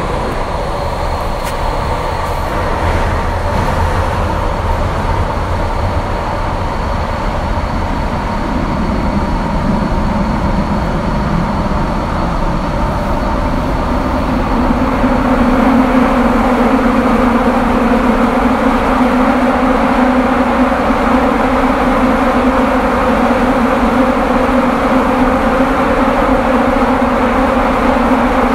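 Running noise heard inside a Kyoto Municipal Subway Tozai Line 50 series car as it takes a curve, with steady tones over the rumble of the wheels on the rails: the wheel flanges rubbing the rail on the curve. The sound grows louder about halfway through, when a lower steady tone comes up.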